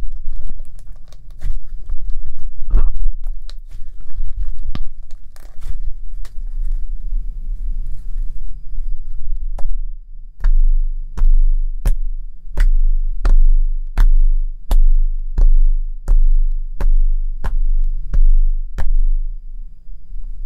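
Blue flour-and-toothpaste slime being squished and kneaded between the fingers, giving irregular wet clicks and squelches. About halfway through it changes to fingertips poking the slime against a flat surface, with a steady run of sticky pops about one and a half a second.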